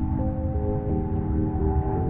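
Ambient electronic music: sustained synth tones that step to new chords every half second or so over a steady low pulse.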